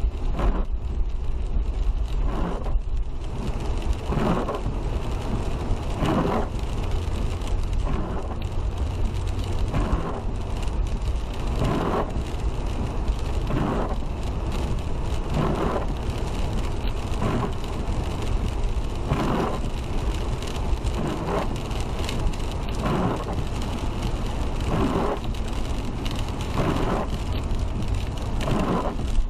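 Car driving on a wet road in rain: a steady low road and engine rumble with rain noise, and a whooshing sweep about every two seconds, as of windshield wipers.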